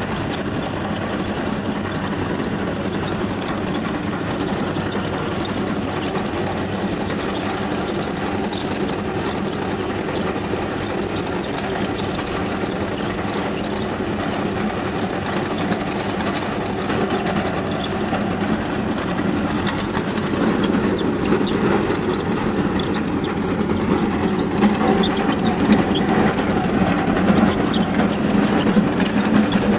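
Tesmec TRS975 chain trencher cutting through rocky ground: the engine runs steadily under load while the digging chain clatters without a break. It grows louder about two-thirds of the way through.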